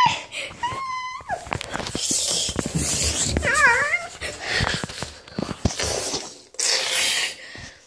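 A young girl whimpering and whining in a few short, wavering wails, with breathy rustling noise between them.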